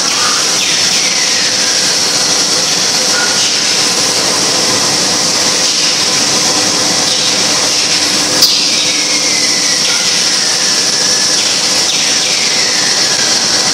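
Wafer biscuit production line machinery running with a loud, steady mechanical whir and hiss. A few short falling squeals come and go, and there is a single sharp click a little past the middle.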